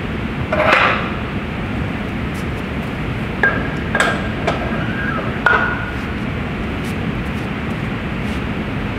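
Iron weight plate being slid onto a barbell sleeve. There is a short scrape under a second in, then four sharp metal clanks with a brief ringing over the middle seconds, all over steady background noise.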